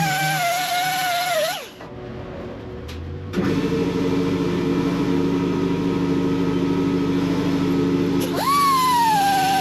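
Hand grinder on the steel hood of a Cat 308 excavator. It spins up with a high whine and winds down about a second and a half in. After a short pause comes a lower, steady grinding sound for about five seconds, then the high whine spins up again near the end.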